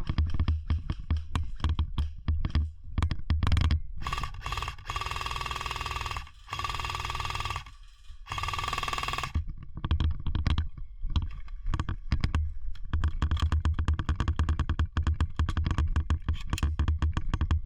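Crunching and rustling of a player moving through woodland leaf litter and brush, many small clicks over a low rumble. A steady, pitched whine is also heard, starting about four seconds in and lasting about five seconds in three stretches.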